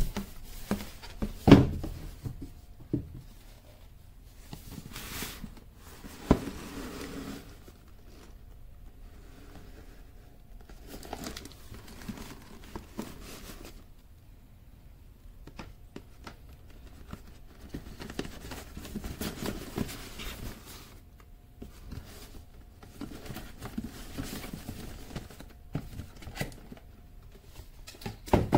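Cardboard box being handled and opened by hand: rustling, scraping and crinkling, with a few sharp knocks, the loudest about a second and a half in.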